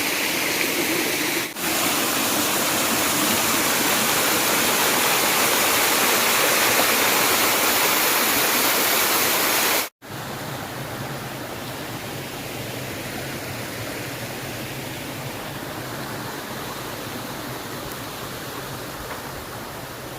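Waterfall rushing in a steady loud hiss. About ten seconds in it cuts out for an instant and comes back quieter and lower.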